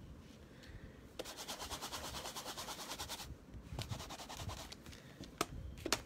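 A clear stamp on an acrylic block being scrubbed rapidly back and forth on a stamp-scrubber pad for about two seconds, to clean the ink off it. Two sharp clicks come near the end.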